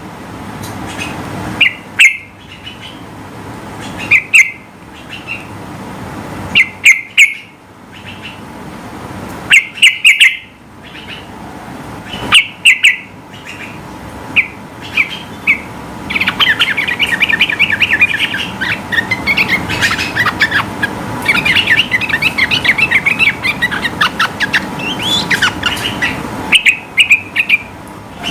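Yellow-vented bulbul (trucukan) singing: loud, short chirpy phrases every two to three seconds. Just past the middle it breaks into a long, fast run of rapid notes (the 'ropel' song) lasting about ten seconds, then goes back to the short phrases near the end.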